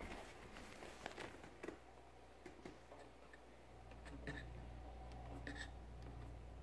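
Faint scattered clicks and handling noise as fingers turn the knobs on the light table's analog RGB LED controller, with a low steady hum coming in about four seconds in.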